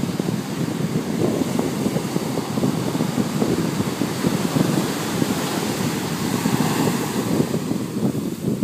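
Ocean surf breaking on a beach, a steady wash of waves with wind buffeting the microphone.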